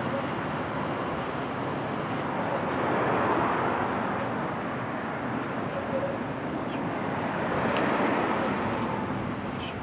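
Road traffic noise as vehicles drive past, swelling twice, once about three seconds in and again near eight seconds.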